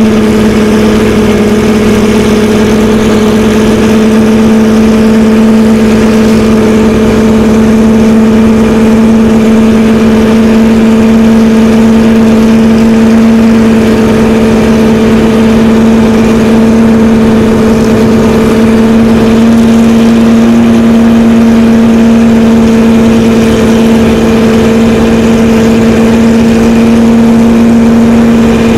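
Porsche 917's air-cooled flat-12 racing engine idling steadily, with its pitch rising slightly in the second half.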